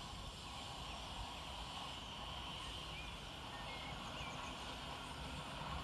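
Faint birds chirping a few times over a quiet, steady background hush with a low rumble.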